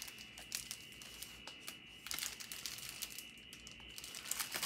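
Clear plastic flower sleeves crinkling in irregular small crackles as wrapped bouquets are handled and lifted.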